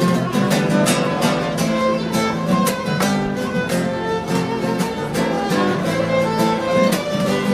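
Instrumental passage of a small acoustic band: classical guitars strummed in a steady rhythm under a sustained melody line, between sung verses of a slow song.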